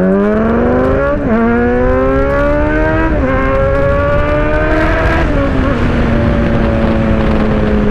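Kawasaki Z900's 948 cc inline-four accelerating through the gears. The engine note climbs and drops at an upshift about one, three and five seconds in, then settles to a steady, slowly falling note.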